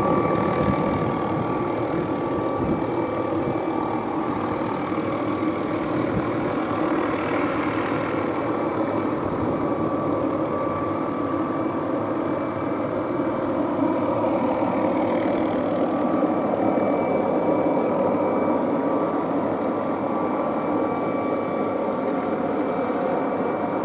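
MD 520N NOTAR helicopter running steadily off to the side: a constant high turbine whine over a low, even rumble.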